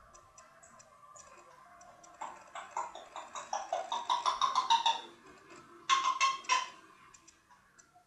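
African grey parrot vocalising without words: a rapid run of clicks carrying a whistle-like tone starts about two seconds in, and three louder clicking calls follow near the six-second mark.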